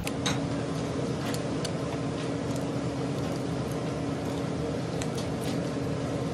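Steady machine hum in a commercial kitchen, with scattered light clicks and taps as whole raw fish are handled and cleaned in steel trays.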